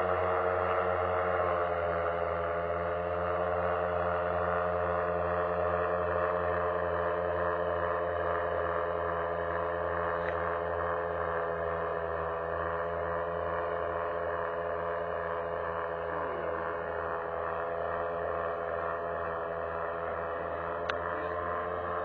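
Paramotor engine and propeller droning steadily in flight, a hum of several held tones, heard from the ground and slowly fading a little. A brief click sounds near the end.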